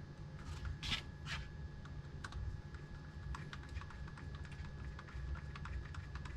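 Small irregular clicks and taps of a small screw being driven by hand into a plastic skeleton bird's neck, with a couple of louder clicks about a second in.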